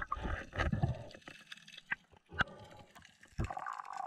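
Underwater sound from a spearfisher's dive camera: irregular clicks and knocks over water noise, with a sharp knock about two and a half seconds in.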